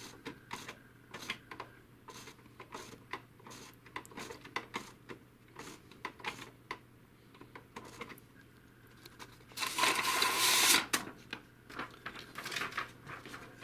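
HP DeskJet 2130 inkjet printer feeding and printing a sheet: its paper-feed and carriage mechanism clicks irregularly over a faint steady hum, with a louder rush of mechanical noise lasting about a second near ten seconds in. The paper is being picked up only because the pick-roller shaft is held down by hand, a sign of the printer's paper-pickup fault.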